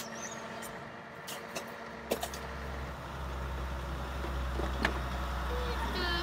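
A refuse truck's engine running steadily, with a few sharp clicks. About two seconds in, a deep low rumble comes in and grows louder.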